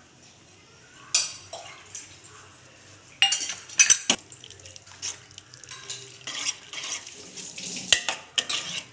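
A spoon clinking and scraping against a metal pot while a thin tamarind broth with shallots is stirred. There are sharp knocks about a second in and three to four seconds in, then a run of quicker scrapes and clinks.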